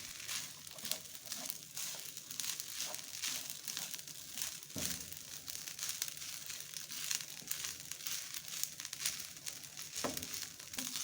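Cooked rice frying in oil in a pan while being stirred with a spatula: steady rustling and irregular crackles and scrapes, with a light sizzle, and two sharper scrapes about five seconds in and near the end.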